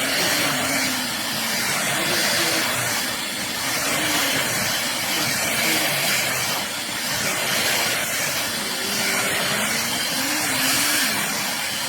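Vazone R6X corded stick vacuum running steadily as it is pushed over a rug, an even rushing hiss of motor and suction.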